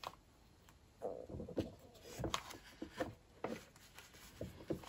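Faint, irregular rustles and light taps of a plastic vacuum-sealer bag being handled and pushed into the slot of a countertop vacuum sealer.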